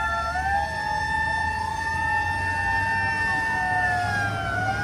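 Several emergency-vehicle sirens sounding together: one holds a steady high tone while others wail up and down across it, over a low engine rumble.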